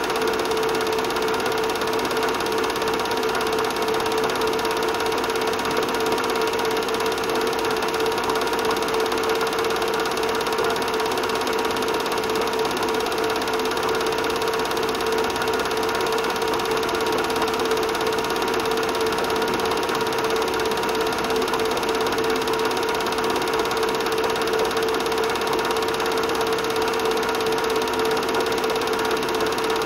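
Film projector running: a steady mechanical whirr and clatter over a constant hum.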